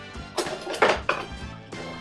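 Music playing in the background, with two clinks and knocks of metal kitchenware, a pot and utensils being handled, about half a second and a second in.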